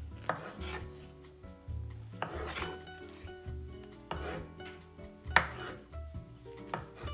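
Slow rasping or scraping strokes, about five of them roughly every second and a half, the loudest a little past the middle, over soft background music.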